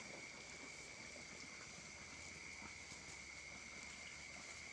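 Faint, steady, high-pitched insect chorus, crickets or similar night insects, over a soft even background hiss.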